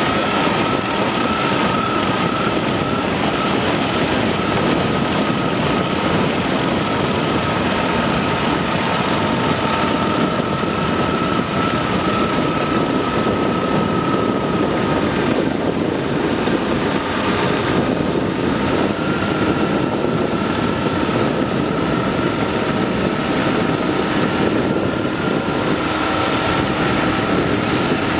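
Rubber-tracked tractor running a side-arm rotary ditch cleaner that churns through the ditch water and flings mud: a dense, steady machine and spray noise with a high whine that falters about halfway and comes back slightly higher.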